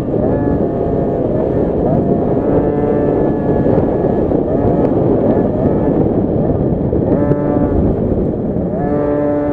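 KTM SX50 two-stroke single-cylinder engine revving hard under race throttle, its pitch climbing and dropping several times as the rider opens and closes the throttle. Wind buffets the on-board microphone.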